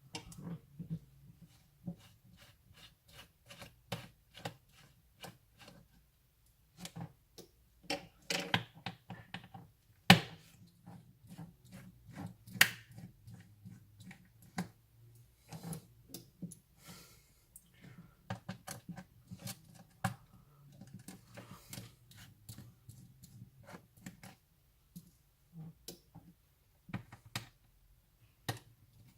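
Irregular small clicks and taps of hands and tools handling a Fujitsu LifeBook U772 laptop's plastic case and parts during disassembly. A sharper click about ten seconds in and another a couple of seconds later.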